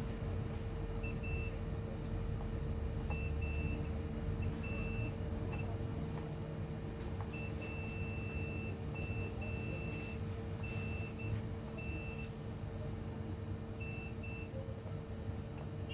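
A multimeter's continuity beeper sounding in short beeps of uneven length, on and off at irregular moments, as probes touch points on a laptop motherboard. A steady electrical hum runs underneath.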